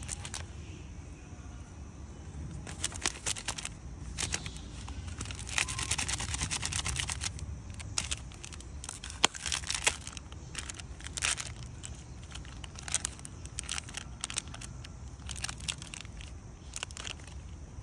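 Crinkly plastic snack wrapper crackling and tearing as a macaque handles it and pulls it open, in irregular spells of crinkling with short pauses between.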